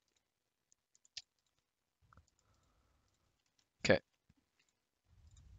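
A quiet stretch with a faint click, then one sharp, loud click of a computer key about four seconds in as the Blender file is saved. A faint low rustle follows near the end.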